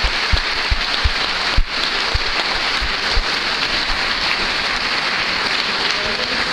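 A hall full of students applauding steadily, a dense even clatter of many hands clapping, with a few dull low thumps mixed in.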